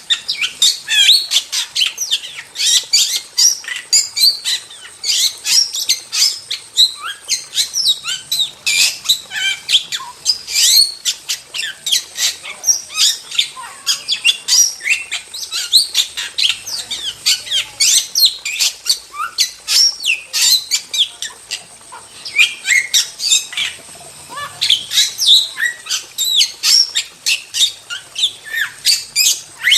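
Starling in vigorous full song: a fast, continuous run of short chirps, whistles and harsh squawks with rapid rising and falling notes.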